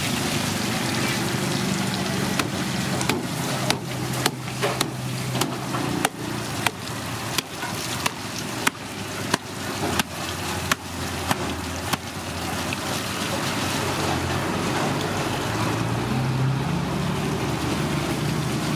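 A cleaver chopping into a giant grouper's head, about fifteen sharp blows roughly two-thirds of a second apart from about two seconds in until about eleven seconds in. Hose water sprays and splashes steadily over the fish throughout.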